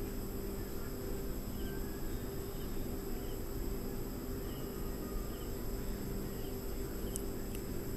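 A steady low electrical-sounding hum with a faint high whine, and faint short chirps every half second or so.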